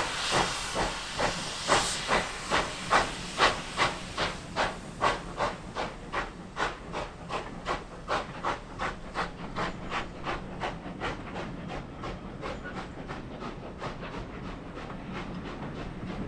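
Steam locomotive exhaust chuffing in even beats, about two and a half a second, over a steady hiss of steam. The beats slowly quicken and fade as the engine gets away.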